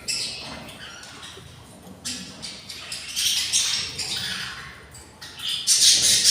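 Budgerigar chicks in the nest giving raspy, hissing begging calls: hungry nestlings squawking for food. The calls come in bursts that grow louder and quicker near the end.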